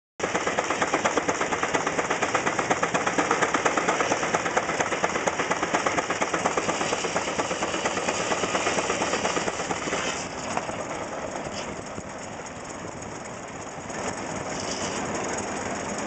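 20 hp Nichols & Shepard single-cylinder steam traction engine running, its exhaust beating in a rapid, even rhythm of about four beats a second. About ten seconds in the beat eases and turns quieter.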